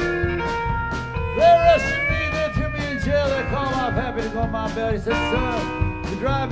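Live country-rock band playing: twangy electric guitar lead full of bent notes, with drums keeping a steady beat, upright bass and keyboard underneath.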